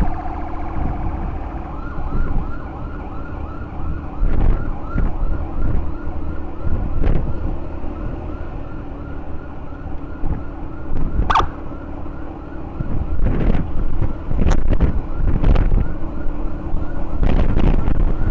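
Emergency vehicle siren cycling in a fast yelp, its pitch sweeping about three times a second, heard from a moving motorcycle over heavy wind and engine rumble, with a few short sharp sounds over it.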